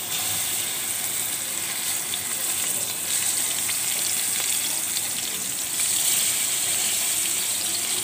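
Spice-marinated fish steaks shallow-frying in hot oil in a pan as more pieces are laid in: a steady sizzle with fine crackling, a little louder about six seconds in.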